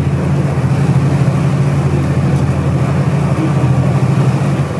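A river cruise boat's engines running steadily under way, a loud, even low drone with rushing water and wind over it.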